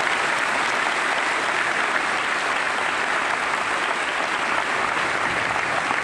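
A large audience applauding, a steady, dense clapping of many hands.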